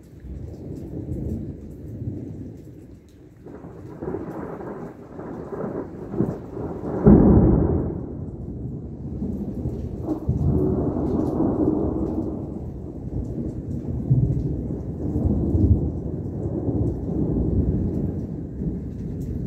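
Rolling thunder rumbling in long waves, with a sudden, louder peal about seven seconds in and another about ten seconds in.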